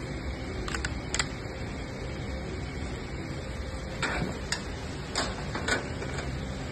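Handling noise: several short clicks and taps as a thin graphic panel knocks against the metal light-box frame of a photo booth stand while it is fitted in. They come in a pair about a second in, then a cluster of clicks in the second half, over a steady background hiss.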